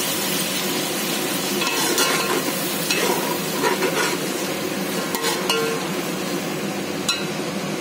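Onions and ginger-garlic paste frying in oil in a metal pot, sizzling steadily, with a spoon stirring and now and then clicking and scraping against the pot.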